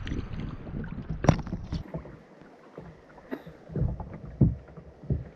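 Seawater sloshing and splashing around a diver at the surface beside a floating dive float. There is a sharp knock about a second in and several softer slaps and knocks later.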